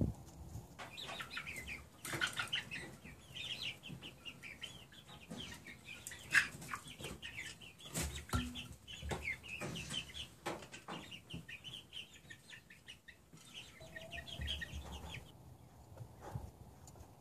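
Young chickens peeping and clucking, many short high calls overlapping, from about a second in until shortly before the end. Sharp clicks and knocks are scattered through it, with wing flapping.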